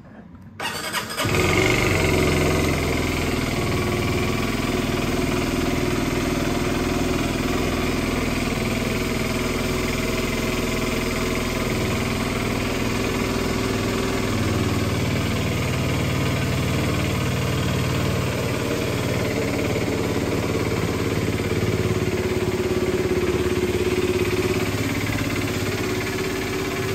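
Aprilia SX125's single-cylinder four-stroke engine starting about a second in, then idling steadily.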